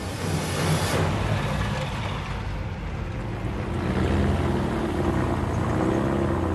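Engines of a military truck and a sidecar motorcycle driving past: a low, steady engine drone that grows louder about four seconds in.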